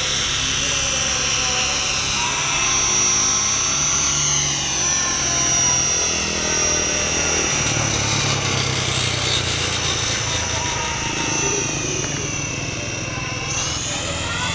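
Align T-REX 550E electric RC helicopter in flight: a high, steady whine from its brushless motor and drive gearing over the hum of the rotor blades. The whine wavers in pitch as the helicopter flies, and its highest part drops away abruptly near the end.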